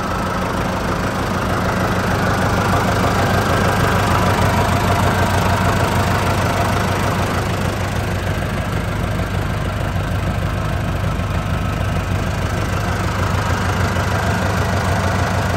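John Deere 5620 tractor's diesel engine idling steadily.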